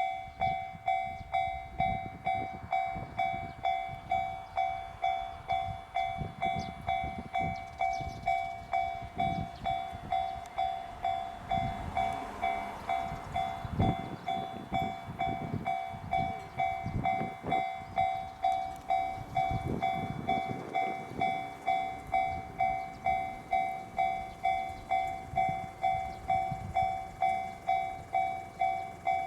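Railway level-crossing warning bell ringing in a steady, even rhythm of just under two strikes a second. Irregular low rumbles and knocks sound underneath.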